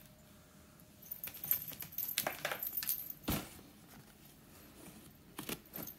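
A cat playing with a wand toy on a tile floor: a run of light clicks, taps and rustles, with one deeper knock about three seconds in and two more quick clicks near the end.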